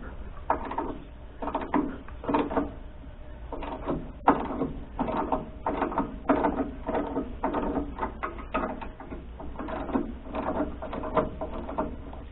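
Repeated ratcheting strokes of a hand wrench, about two a second with short pauses, tightening the sawmill belt's tension adjustment.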